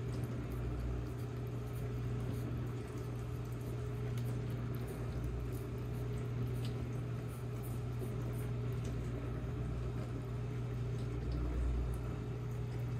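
Cats licking pureed pumpkin off a plastic spoon: faint wet lapping ticks over a steady low hum.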